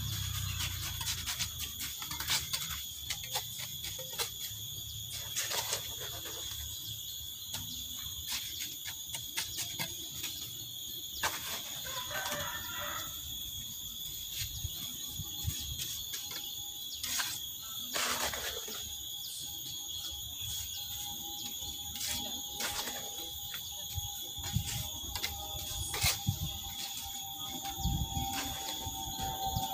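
Irregular sharp taps and scrapes of a steel mason's trowel and of stones being knocked into place in mortar, over a steady high-pitched background whine.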